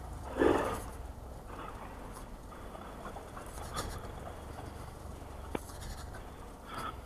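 Honda Monkey 125 motorcycle rolling slowly over cobblestones: a low, steady rumble of the single-cylinder engine and the tyres on the stones. A short, loud sound comes about half a second in, with a few small clicks later.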